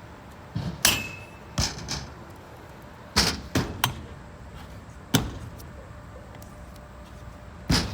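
BMX bike being ridden on a park's ramps: a string of about seven sharp knocks and thuds from tyres landing and metal hitting the ramps, one followed by a short ringing tone about a second in.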